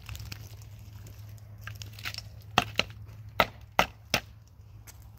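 Five sharp knocks of hard objects struck together, coming about a second apart near the middle.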